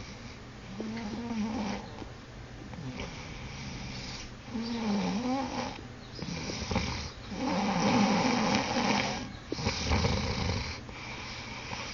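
A sleeping man snoring, about four long wavering snores, the loudest about eight seconds in.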